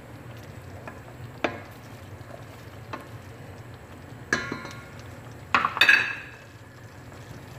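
Wooden spoon stirring thick sauce in a stainless steel pot, knocking against the pot every second or so. A louder, quick cluster of ringing knocks comes about six seconds in.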